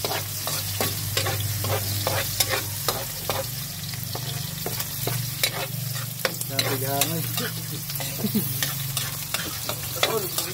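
Metal spatula repeatedly scraping and tapping a steel wok as chopped garlic and shallots fry in hot oil, over a steady sizzle.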